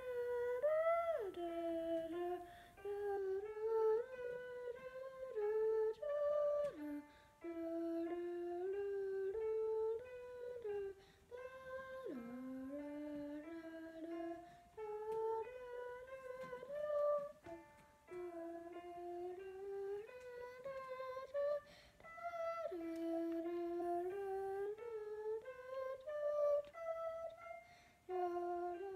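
A slow solo melody of held notes stepping up and down, with a few sliding drops in pitch, from a single instrument or a hummed voice.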